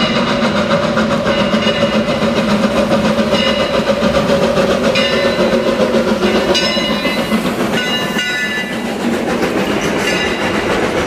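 Old steam locomotive and its train passing close by on the track, the wheels clattering over the rails, with brief high squeals as the cars roll past.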